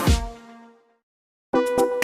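Background music with a steady beat that fades out within the first second, then a brief silence, then a different electronic track with a quick beat starts abruptly near the end.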